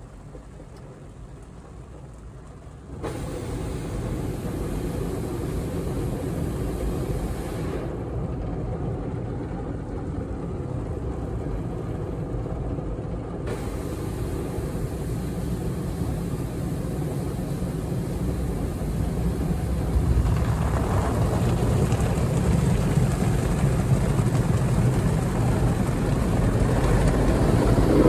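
Automatic gantry car wash heard from inside the car's cabin: rotating brushes and water spray washing over the body and glass, a steady rushing noise. It jumps up suddenly about three seconds in and grows louder near the end as a brush sweeps along the side window.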